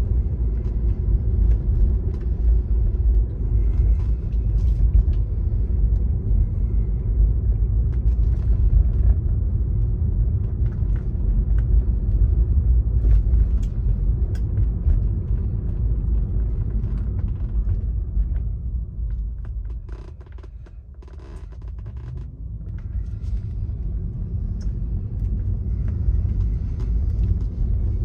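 Car driving, a steady low rumble of road and engine noise that dies down about twenty seconds in as the car slows, then builds again as it picks up speed.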